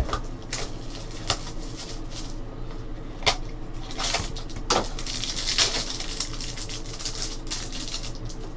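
A small cardboard trading-card box being opened and a plastic-wrapped card pack handled: papery rustling and crinkling with a few sharp taps, the rustling strongest from about four seconds in until shortly after six.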